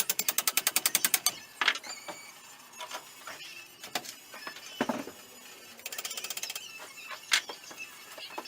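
Ratchet wrench clicking rapidly, about a dozen clicks a second, then scattered metallic clinks and knocks of tools and parts, and another short burst of ratcheting about six seconds in.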